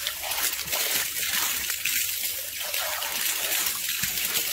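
A jet of water splashing steadily against a lioness's open mouth as she bites and drinks at it, a constant hissing splash.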